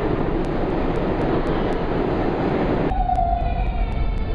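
New York City Subway train running past the platform: a steady, loud rumble and rattle of the moving cars. About three seconds in it gives way abruptly to quieter platform background with a brief tone.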